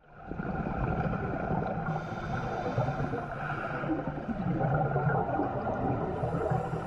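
Underwater sound picked up by a diver's camera: a steady, muffled low rumble and drone with bubbling, as scuba divers breathe out through their regulators.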